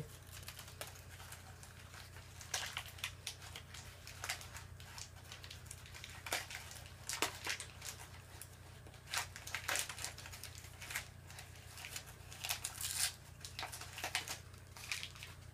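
Packing material being pulled out of a new cuckoo clock, with irregular rustles and crackles that come in quick clusters, over a steady low hum.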